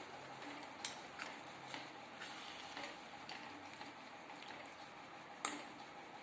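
Diced potatoes in oil and water simmering in a kadai, a faint steady sizzle. A few light clicks of a spoon against the pan, the sharpest about five and a half seconds in.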